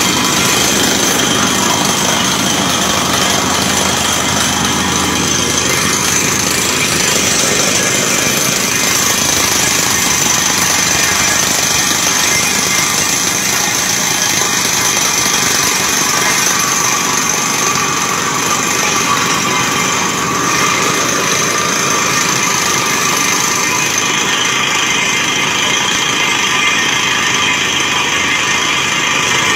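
PRL PDTHR-300 truck-mounted water well drilling rig air-drilling with a down-the-hole hammer, compressed air blowing rock dust and cuttings out of the borehole. A steady, loud, dense mechanical noise with a few high, steady whining tones over it.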